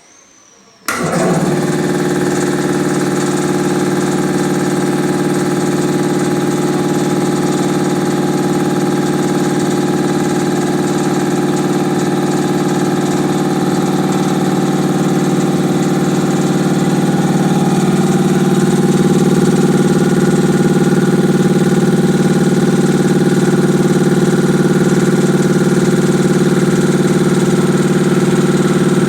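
Anest Iwata reciprocating piston air compressor starting abruptly about a second in, then running steadily.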